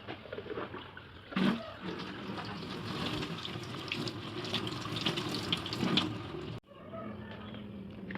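Running water, as from a tap, with scattered light clicks and knocks; the loudest knock comes about a second and a half in. The sound cuts off abruptly near the end and a similar steady rush starts again.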